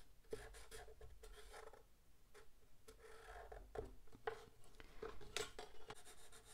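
Sharpie marker drawing lines along a metal ruler on a small card of watercolor paper: faint scratchy strokes, with a few light knocks near the end as the marker and ruler are moved and set down.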